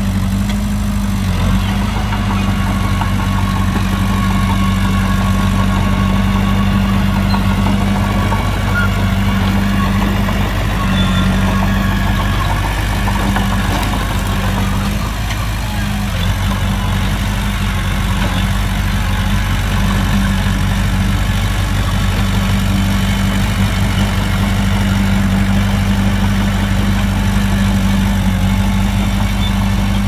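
Heavy diesel engine of an earthmoving machine running steadily, a loud low drone that holds an even pitch.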